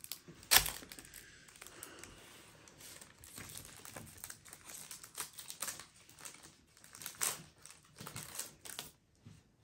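Foil Pokémon booster pack wrapper crinkling while trading cards are handled, with scattered small clicks and rustles. A sharp knock about half a second in is the loudest sound.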